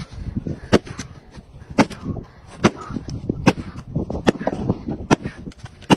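A series of about seven sharp strikes, evenly spaced a little under a second apart, with softer knocks and clatter between them.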